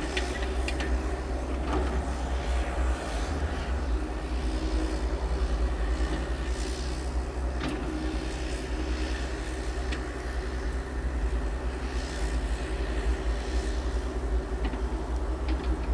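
Yanmar excavator's diesel engine running steadily under work, with a few sharp metallic clanks scattered through.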